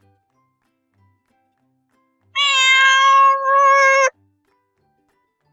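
A domestic cat gives one long meow at a steady pitch, starting about two seconds in and lasting close to two seconds, wavering briefly partway through.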